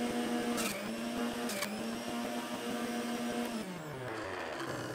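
Electric centrifugal juicer running with a steady motor hum while juicing a banana, with two short clicks about a second apart. About three and a half seconds in it is switched off and the motor winds down, its pitch falling.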